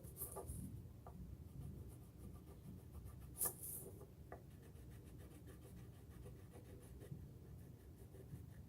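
Faint, quick scratching strokes of a colouring implement on paper as a letter is coloured in, with one louder, sharper scratch about three and a half seconds in.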